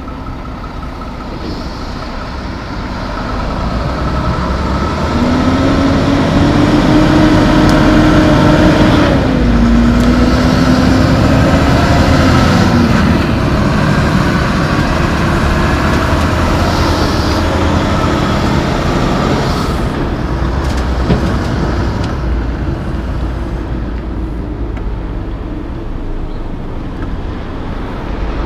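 Mack Anthem diesel tractor pulling loaded Super B fuel tankers, accelerating away and passing close by. The engine's pitch climbs, drops once at a gear change about nine seconds in, then climbs again. The engine and tyre noise are loudest as the tankers go past, then fade as the rig moves off.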